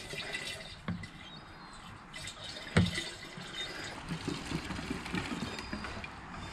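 Petrol pouring from a one-litre plastic bottle into a 20-litre plastic container, then pouring from a plastic jerry can's spout back into the litre bottle to measure the next amount. There is a single sharp knock about three seconds in.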